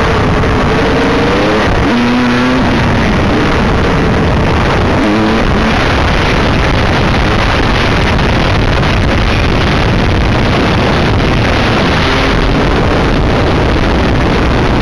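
Honda dirt bike's single-cylinder engine running and revving up and down as the bike rides along, under a loud steady rush of wind noise on the helmet-mounted microphone.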